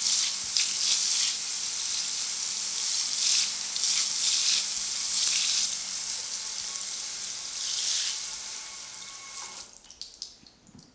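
Shower spray running, a steady hiss of water, which stops near the end, leaving a few scattered drips.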